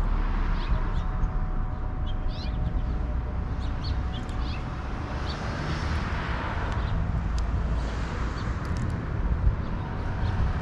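Outdoor backyard ambience: a steady low rumble under scattered short, high bird chirps and calls.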